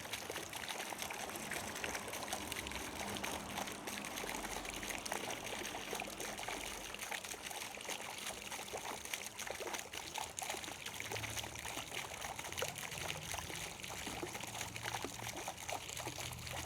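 Flowing water trickling and splashing steadily, a continuous bubbling of many small splashes.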